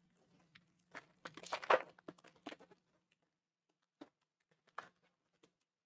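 Baseball card pack wrapper crinkling and tearing as it is opened: a dense crackling burst from about a second in to nearly three seconds, then a few soft clicks.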